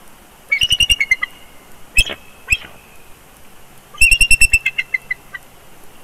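Bald eagle calling close by: a rapid run of high, sharp chirping notes, two single notes, then a second rapid run whose last notes fall in pitch.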